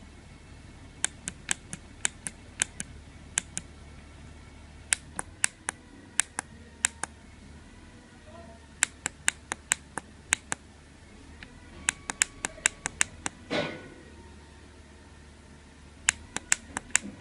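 Sharp clicks of the pushbutton keypad on a Nuvoton NUC140 learning board being pressed, in quick runs of several presses with short pauses between, as in multi-tap typing on a phone-style keypad. A brief rustle about thirteen and a half seconds in.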